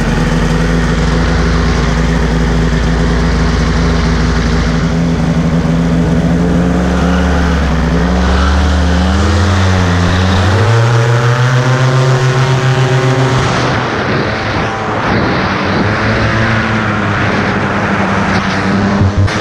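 Polini Thor 250 single-cylinder two-stroke paramotor engine running. Its pitch climbs as the throttle opens for the takeoff run, from about six to eleven seconds in. It then runs at high power in flight, its pitch wavering.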